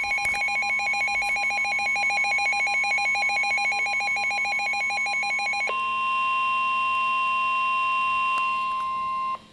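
Emergency Alert System alert tones: a rapidly pulsing, warbling alert tone for about five and a half seconds, then a steady single-pitch alarm tone that cuts off abruptly shortly before the end.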